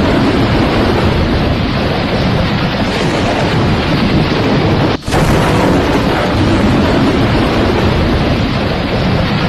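Loud steady rushing noise, with a brief dropout about five seconds in.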